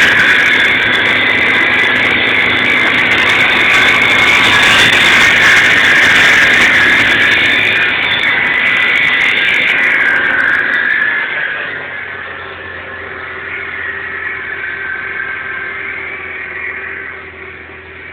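A 1999 Audi A6 running with the odd noise being recorded: a loud, steady sound that drops to a quieter level about two-thirds of the way through.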